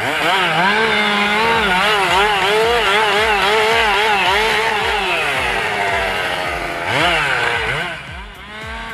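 Chainsaw engine running near full throttle with its pitch wavering, as if loaded in a cut. About seven seconds in it dips and revs up again, then drops away near the end.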